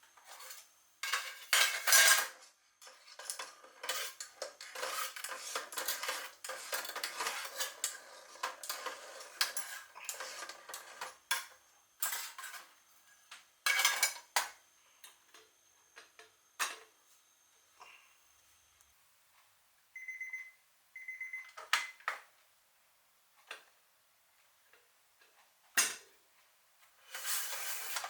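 A utensil clinking and scraping against an aluminium mess tin during cooking, followed by scattered knocks and two short beeps.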